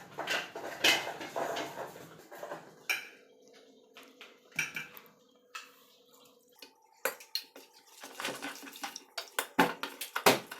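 Utensils clinking and scraping against a bowl as water is mixed into a wheat-flour batter for banana fritters. A quick run of sharp knocks comes near the end.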